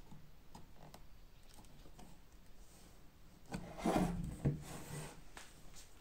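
Old leather fireplace bellows worked by hand: faint clicks of the wooden boards being handled, then, about three and a half seconds in, a louder stretch of stiff leather and wood rubbing as the boards are pressed together, lasting about a second and a half.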